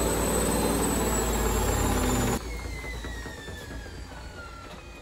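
Washing machine's universal motor spinning the drum, a steady loud hum with a high whine. About two and a half seconds in the drive cuts out and the drum coasts down, the whine falling slowly in pitch as it fades.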